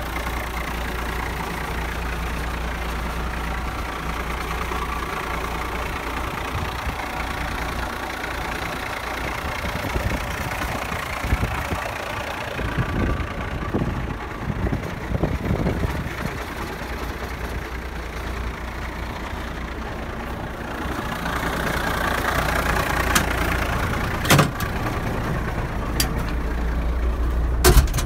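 Allis-Chalmers 7080 tractor's turbocharged six-cylinder diesel idling steadily, heard close up as it is circled. A few sharp knocks come near the end.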